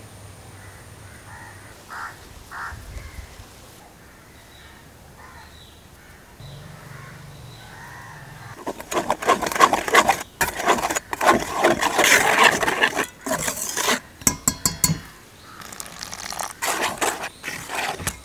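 Wire whisk scraping and clinking rapidly against a stainless steel bowl as it stirs dry flour and spice powders. The whisking starts about halfway through and comes in quick runs with short pauses. The first half is quiet apart from a couple of light taps.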